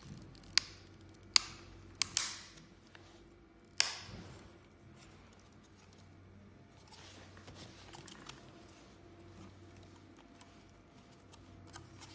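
Sharp plastic clicks and snaps, about five in the first four seconds, as a screwdriver pries at the clips on the back of a plastic Mercedes-Benz distronic grille emblem. After that come quieter rubbing and scraping as the emblem is handled.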